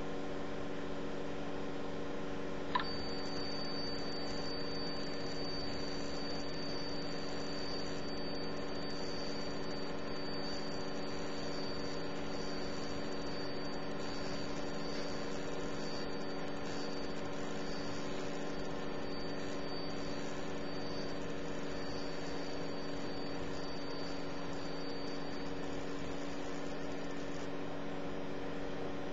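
Steady hum of an LP8010 10-watt CO2 galvo laser marking system, with several low steady tones. A thin high-pitched whine starts with a click about three seconds in and runs through most of the roughly 25-second marking cycle.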